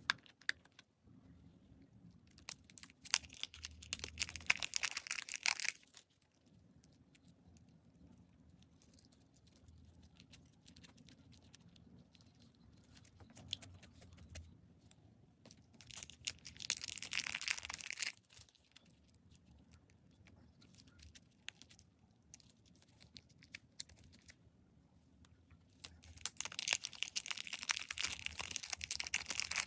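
Slime being squeezed and pressed, crackling and popping in three bursts of a few seconds each, with quiet stretches between.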